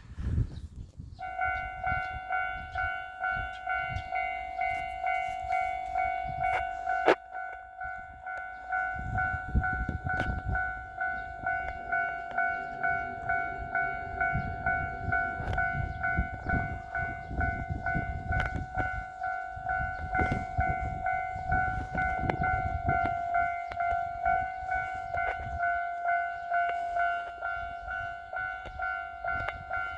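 Japanese level-crossing alarm starts about a second in and rings steadily, about one and a half strikes a second. A sharp knock comes about seven seconds in, and from about nine seconds the low rumble of an approaching diesel train rises under the bell.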